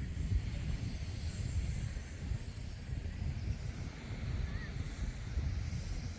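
Wind buffeting the microphone outdoors: an uneven low rumble with faint hiss above it.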